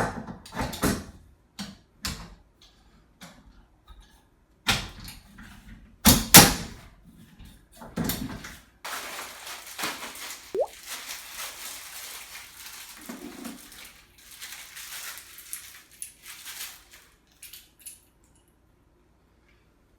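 Irregular knocks and clunks of pressure-washer parts being handled and fitted together during assembly, with the loudest thuds about six seconds in, then a longer stretch of rustling and scraping.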